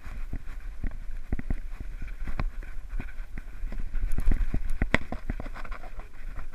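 Handling noise from a GoPro worn by a small dog as it trots about: irregular knocks and rubbing of the camera mount over a rumble, with the tapping of its steps. It starts abruptly, the loudest knock comes about five seconds in, and it stops as the dog settles.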